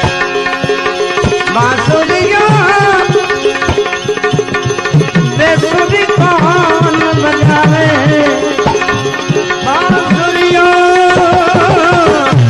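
Devotional bhajan music: a tabla rhythm under a melodic instrument playing a gliding, ornamented tune.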